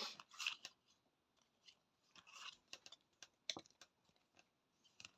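Faint handling of small paper playing cards: soft slides of card against card and a scatter of light taps and clicks as the cards are turned over one after another.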